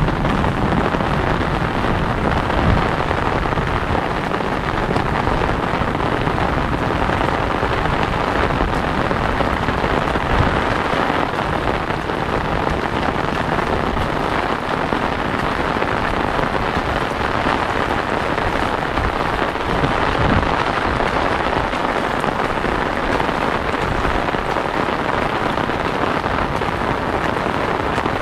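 Steady rain falling on an umbrella overhead and on waterlogged ground, an even hiss with a low rumble underneath.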